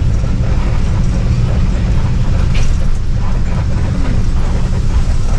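Mercedes-Benz OH 1526 coach under way: a steady low rumble of engine and road noise.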